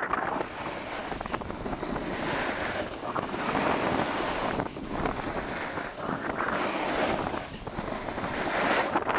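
Skis carving and scraping over groomed, packed snow, the hiss swelling and fading with each turn every second or two, mixed with wind rushing over the microphone.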